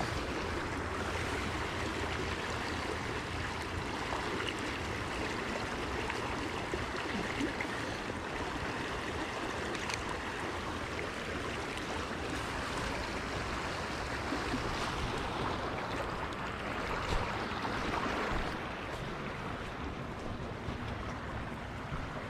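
Steady rush of flowing river water, an even noise with no break.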